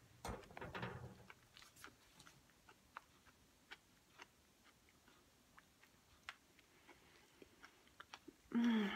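Soft, quiet chewing of a very ripe Adriatic fig, with scattered small wet mouth and lip clicks. A short closed-mouth hum comes near the end.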